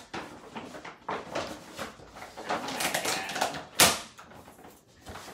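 Plastic packaging and wrappers rustling and crinkling as they are handled, with a sharp snap or knock about four seconds in.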